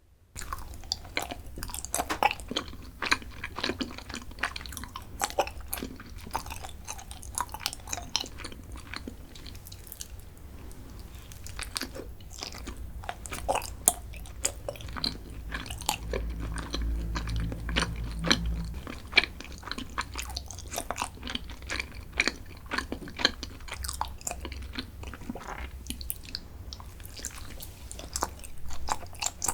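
Close-miked chewing and biting of chocolate snacks, with many irregular crisp crunches and crackles.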